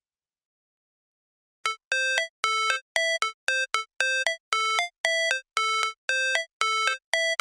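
Background music: after a second and a half of silence, a synthesizer riff of short, repeated beeping notes starts and quickens toward the end.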